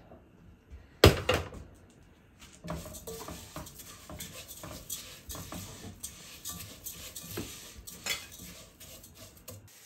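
A sharp knock about a second in, then a metal spoon clicking and scraping against a cooking pot as raw rice is stirred in oil to fry it.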